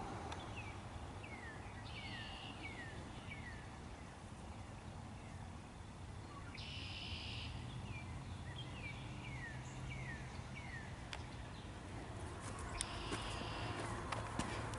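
Birds calling faintly at a marsh: runs of short, down-slurred whistled notes, about two a second, with a short buzzy trill three times.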